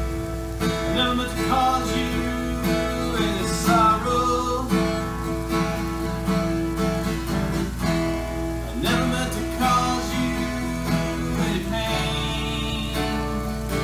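Steel-string acoustic guitar strummed through a slow chord progression, with a man's voice singing over it at times.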